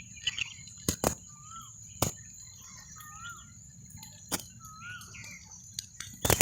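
Wild birds calling: short warbling whistles and chirps every second or so, over a steady high-pitched insect drone. Several sharp clicks cut through, a burst of them near the end being the loudest sound.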